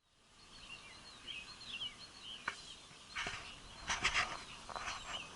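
Birds calling outdoors, many short chirps that rise and fall in pitch, repeating throughout. Several louder, harsh, hissy bursts break in between about three and five seconds in.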